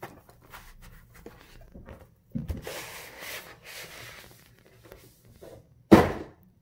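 Cardboard cooler packaging being handled on a desk: small clicks, a thump about two seconds in followed by a couple of seconds of rustling and sliding, and a loud knock near the end.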